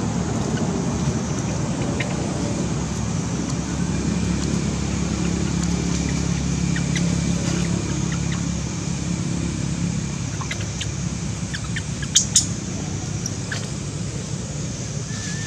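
Steady low rumble like a motor vehicle or traffic, with faint scattered ticks and two loud, sharp clicks about twelve seconds in.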